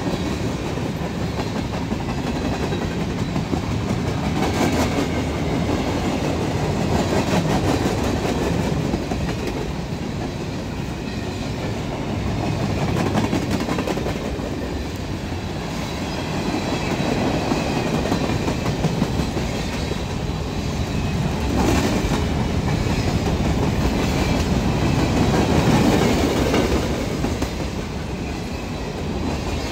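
Freight cars of a long manifest train rolling past close by: a steady rumble of steel wheels on the rails, with a continuous run of clicks as the wheels pass over rail joints, swelling and easing as the cars go by.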